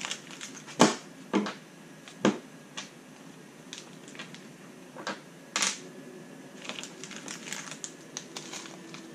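Small RC kit parts and parts bags being handled and sorted on a tabletop: a run of sharp clicks and light knocks, with a few louder knocks in the first three seconds and a quick patter of small clicks later on.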